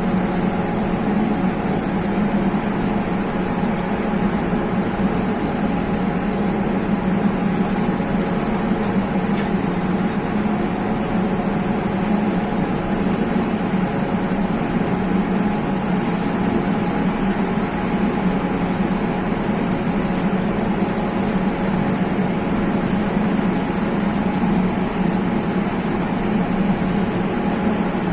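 Arc welding on large steel pipe: a steady machine hum with the continuous fine crackle of the arc.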